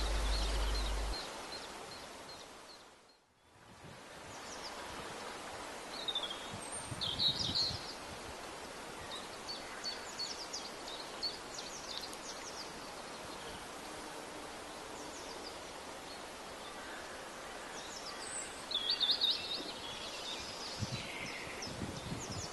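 Outdoor spring ambience: a steady faint hiss with small birds chirping and calling on and off, busiest about seven seconds in and again near nineteen seconds. About three seconds in the sound fades away for a moment, then returns.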